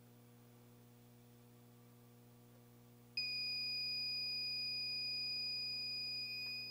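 X-Power 1000 W power inverter's alarm buzzer starts suddenly about three seconds in and holds one steady high-pitched beep. The owner puts the warning down to a poor connection or to the input voltage dropping too low.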